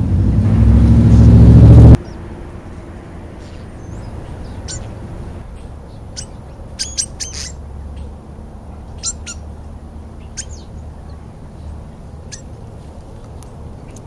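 A vehicle engine grows louder over the first two seconds and cuts off abruptly. Then European starlings give short, sharp calls: a quick cluster about seven seconds in, and single ones scattered after.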